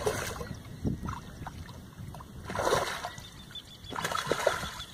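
A hooked mullet thrashing at the water surface, splashing three times a couple of seconds apart.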